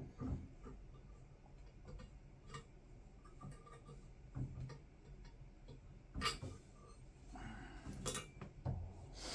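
Thin copper wire (18 gauge) being bent and handled by hand, giving scattered light clicks and taps every second or two.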